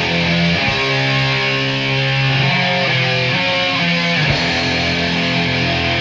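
Background music with distorted electric guitar chords, in a heavy rock style.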